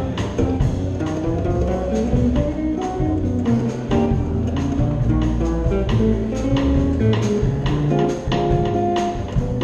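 Jazz trio playing live: a hollow-body electric guitar plays a melody over walking upright double bass and drums keeping a steady beat.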